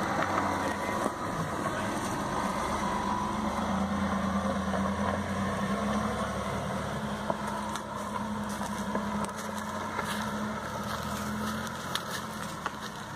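Land Rover Discovery engine running steadily at low revs as it crawls slowly through a rut on a dirt track, with scattered sharp clicks in the second half.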